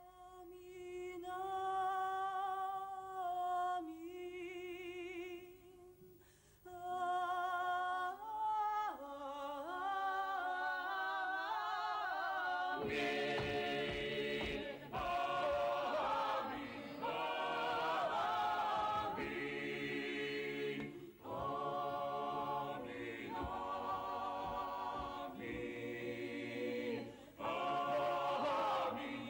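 Unaccompanied choral singing. At first a few long, wavering held notes are sung softly, then about thirteen seconds in a fuller and louder group of voices takes over.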